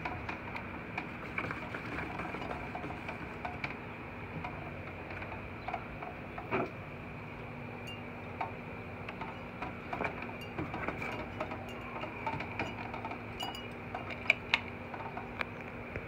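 Ceiling fan running, its motor giving a steady low hum with a steady high whine above it. Scattered light clinks and ticks come and go irregularly over the hum.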